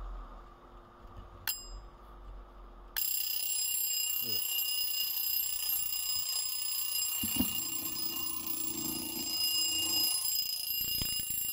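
Freshly overhauled Chinese wind-up twin-bell alarm clock (the pecking-chicken "tavuklu" model) going off: after a single click about a second and a half in, the bell starts ringing about three seconds in and keeps ringing steadily at a constant pitch, bell-like.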